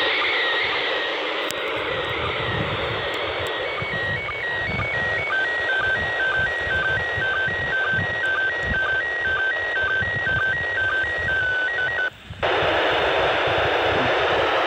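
Speaker of an Ailunce handheld FM radio tuned to the ISS slow-scan TV downlink: steady receiver hiss with a faint tone stepping back and forth between two pitches in a regular pattern, cutting out for a moment about twelve seconds in. Wind rumbles on the microphone underneath.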